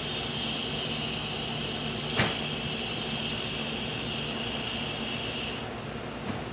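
La Pavoni lever espresso machine, hot and under pressure, giving off a steady high hiss as a shot is started. There is a single knock about two seconds in, and the hiss cuts off near the end.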